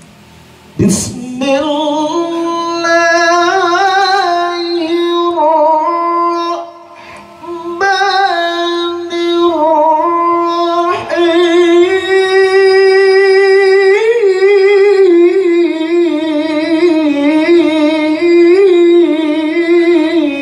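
A man's voice reciting the Quran in the melodic tilawah style: long held notes with wavering, melismatic ornaments. It starts about a second in and breaks once for a breath about a third of the way through.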